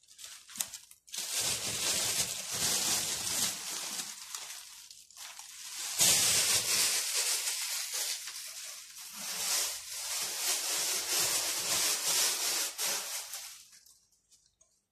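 Thin plastic bags rustling and crinkling as they are handled, in uneven surges, dying away shortly before the end.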